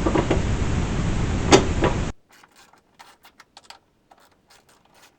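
Steady background noise with a couple of sharp clicks, then an abrupt cut to quiet, with faint, irregular metallic clicks from a 10 mm socket wrench working loose the nut on a Jeep hood latch.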